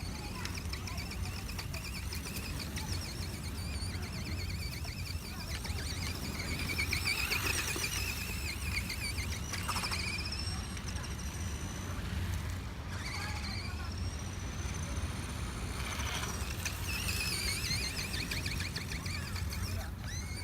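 Small electric motor of a remote-control buggy whining as it is driven, its pitch sliding down and up with the throttle: falling about ten seconds in, rising again a few seconds later. A steady low rumble runs underneath.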